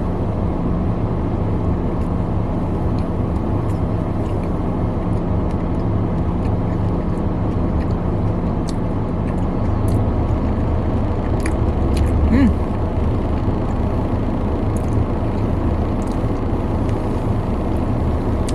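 Car engine running, heard as a steady low rumble inside the cabin, with a steady hum beneath it that stops about halfway through and a few faint scattered clicks.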